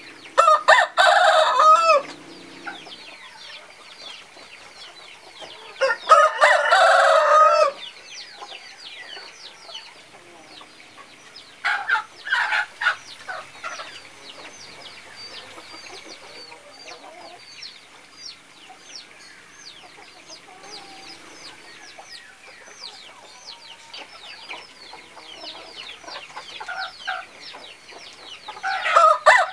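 Roosters crowing: two long crows about a second in and about six seconds in, a shorter call around twelve seconds, and another crow beginning near the end. Between the crows there is a constant high twittering of many small chirps.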